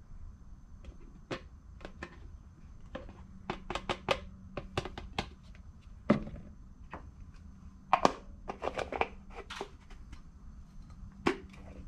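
Plastic paint-mixing cup and spray gun cup being handled on a wooden workbench: scattered clicks, taps and knocks, with a louder knock about six seconds in as the cup is set down and another about two seconds later.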